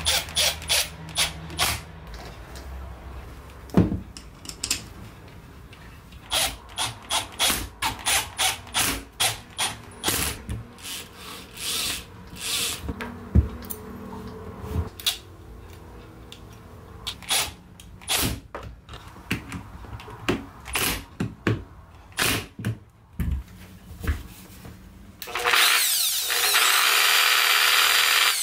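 A cordless drill-driver whirring in short bursts as screws are driven into a Bosch GWS 9-125 S angle grinder's housing, with a few sharp knocks. About three seconds before the end, the reassembled angle grinder is switched on, spins up and runs at speed.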